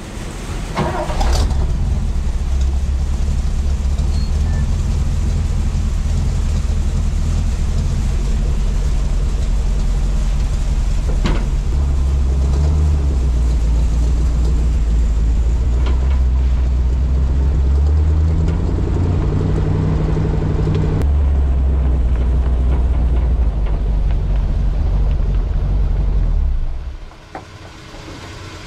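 Grain truck engine running as the truck is driven, its pitch stepping up and down with the throttle and gears. It dies down near the end.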